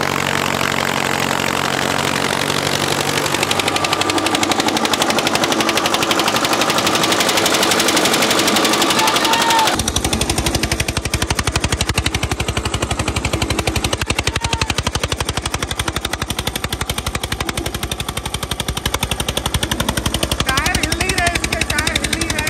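Eicher 242 single-cylinder diesel tractor engine running close up under a tug-of-war load, a loud, rapid, even knocking of its firing strokes. About ten seconds in the sound cuts to a heavier, deeper version of the same knocking.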